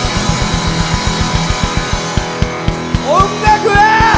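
Live rock band playing: electric guitar and bass over a fast, driving drum beat, with a man's singing voice coming in about three seconds in.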